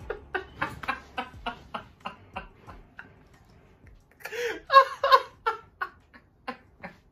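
A man laughing hard: a run of short rhythmic laugh pulses that fades out, then a breathy gasp and a louder burst of laughter about four seconds in, trailing off in short pulses.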